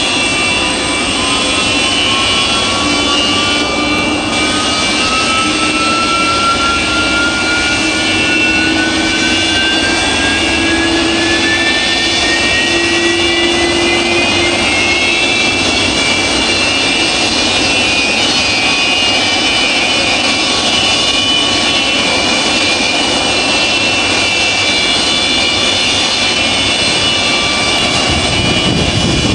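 Antonov An-225 Mriya's D-18T turbofan engines running on the ground: loud, steady jet noise with several high whines. One whine climbs steadily in pitch over about the first fifteen seconds, then holds steady.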